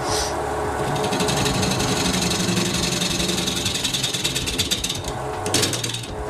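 Wood lathe spinning an off-centre apricot-wood workpiece while a gouge cuts it, the interrupted cut striking the uneven wood in a rapid, steady chatter over the lathe's running. The chatter is the sign of double-axis turning, the wood meeting the tool only part of each turn.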